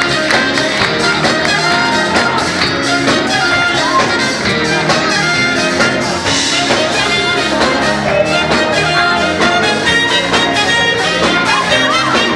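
Live band playing fast Jewish wedding dance music, horns over a quick, steady beat.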